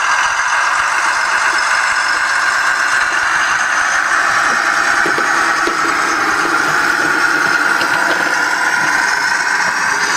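Doehler & Haass sound decoder in a Fleischmann 0e model locomotive playing a recorded DR V 15 diesel shunter engine, running steadily as the model moves, heard through its tiny 9x16 mm speaker, which gives a thin sound with little bass.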